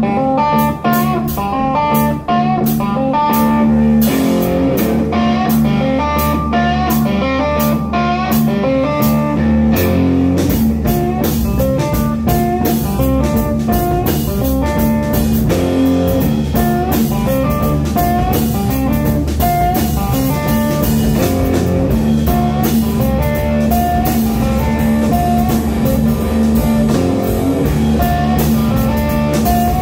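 Live blues-rock band playing: electric guitars picking a repeating riff over a steady drum-kit beat, with the bass filling out about ten seconds in.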